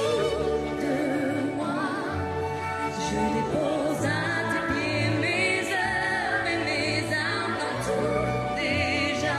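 A woman singing with a wide vibrato over sustained instrumental backing with a low bass line.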